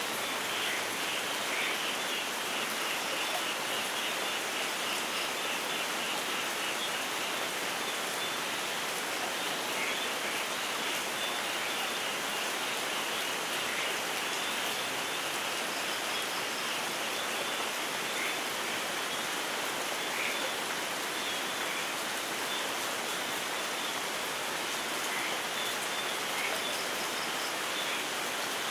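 Steady rain falling, an even hiss with scattered small drip splashes.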